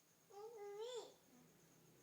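A young child babbling: one short, high-pitched vocal sound that rises and falls, starting about a third of a second in and ending just after the first second.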